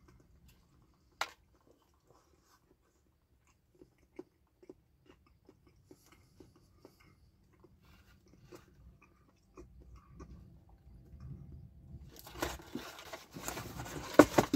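A person chewing a bite of chicken habanero sandwich close to the microphone. There is a sharp click about a second in, then soft wet mouth clicks about twice a second. Louder crunching and rustling builds near the end.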